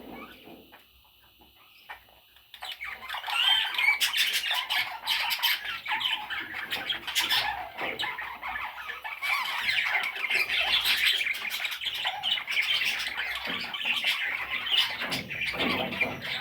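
Parrots chattering and squawking, with many short high calls overlapping. The chatter starts suddenly about three seconds in, after a near-quiet start.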